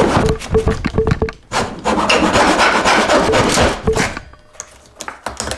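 Japanese pull saw cutting through wood in quick rasping strokes, with a brief break about a second and a half in. The sawing stops about four seconds in, leaving a few light clicks.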